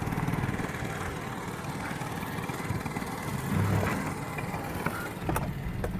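Steady engine and road noise from inside a truck driving slowly on a dirt road, with a low swell about halfway through and a few sharp knocks near the end.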